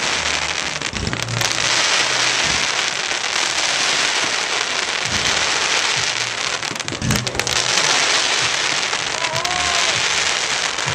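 Fireworks display: a dense, continuous crackling of bursting shells, with a few deep thuds of shells bursting about one, five and seven seconds in.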